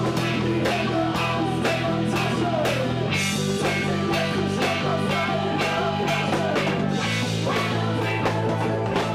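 Live funk band playing: electric guitar and bass guitar over a drum kit, with a steady beat and held bass notes that change every few seconds.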